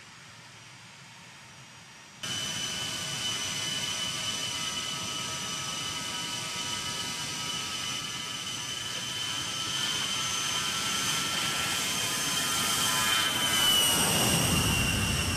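Fairchild Republic A-10 Thunderbolt II's twin TF34 turbofan engines running with a steady high-pitched whine. The sound cuts in abruptly after about two seconds of faint hum. Near the end it grows louder as the jet passes close, and the whine drops in pitch as a low rumble swells.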